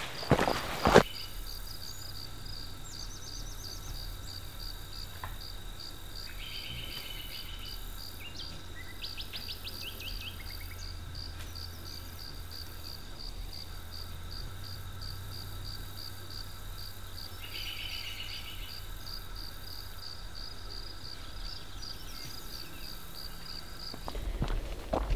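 Insects calling in a steady, evenly pulsing trill, with a few short bird calls over it. Footsteps in the first second and again near the end.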